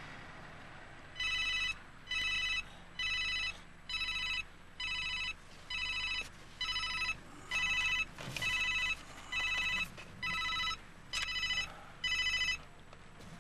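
Mobile phone ringing with an electronic ringtone: about fourteen identical short beeps, a little under one a second, over a faint low hum.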